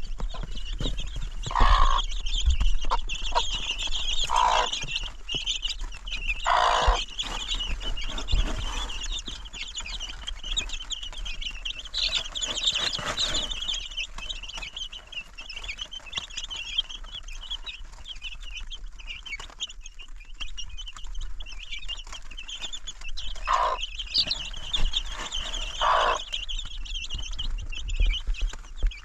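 Birds chirping steadily in a high, continuous chatter, with five louder, lower calls: one at about two seconds, two more within the next five seconds, and two near the end.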